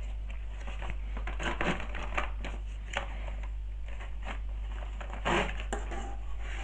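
Cardboard box being opened and handled: rustling, and a string of small knocks and scrapes as a light fitting with its plastic power cord is lifted out, with one louder knock about five seconds in.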